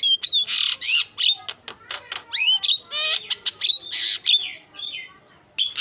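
Javan myna singing a fast, varied chatter of harsh squawks, sharp clicks and rising whistles, with a brief lull shortly before the end.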